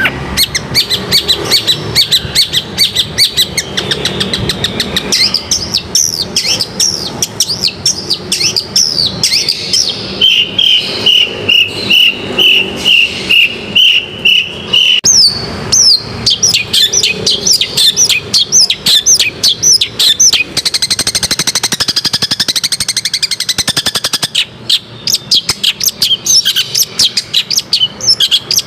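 Long-tailed shrike (cendet) singing loudly: a fast, varied stream of chirps, trills and short whistles, with a run of about a dozen evenly spaced repeated notes around the middle.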